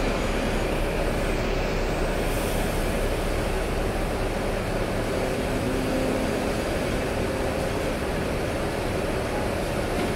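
Hong Kong double-decker tram heard from inside its upper deck as it moves slowly along the street: a steady rumble of the car running on its rails, with a short low hum about halfway through.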